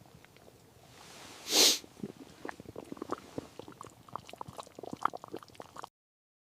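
A dog eating something it has been handed: a short sniff, then a run of small irregular wet clicks and crunches of chewing that stops abruptly near the end.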